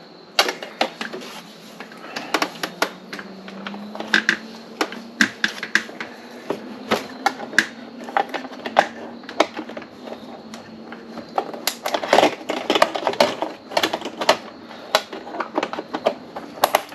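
Irregular sharp clicks and taps of hands working small plastic and metal parts on a motorcycle's lower fairing, coming thicker near the end.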